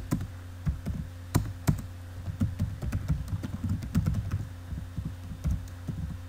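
Typing on a computer keyboard: a quick, irregular run of key clicks as code is entered.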